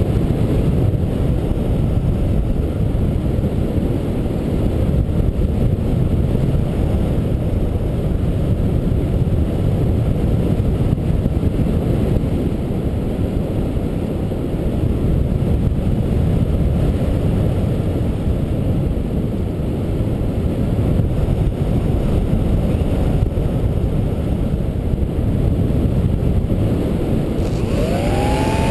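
Airflow rushing over a GoPro Hero HD on a HobbyKing EPP-FPV radio-controlled foam plane gliding with its motor off, a steady, low rush. Near the end the plane's electric motor starts up with a rising whine.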